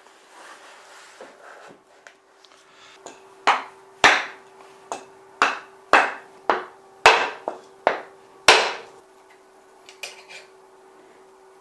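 Hammer strikes, about ten sharp blows with a short ring after each, coming in a quick run through the middle of the stretch, over a faint steady hum.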